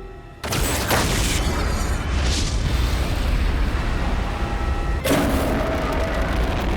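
Heavy explosion sound effects: a sudden loud boom about half a second in, then continuous deep rumbling, with a second blast about five seconds in.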